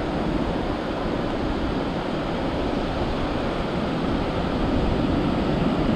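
Steady wash of ocean surf breaking on the beach, mixed with a low rumble of wind on the microphone.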